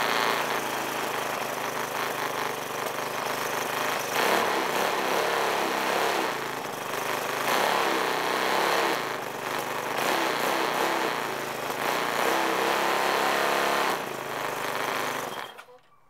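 A 6 horsepower lawn mower engine, blade removed, running loudly, its speed rising and falling several times, before it shuts off near the end.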